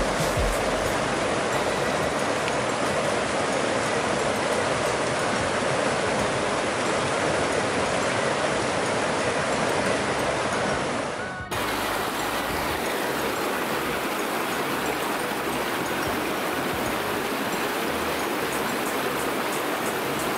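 Fast mountain river rushing over rocks close by, a steady hiss of moving water, with a brief dip about eleven seconds in where one shot cuts to the next.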